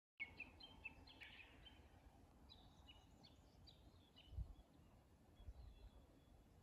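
Near-silent outdoor ambience with faint, short chirps of small birds, most of them in the first few seconds. Under them runs a low rumble, with a soft low bump about four seconds in.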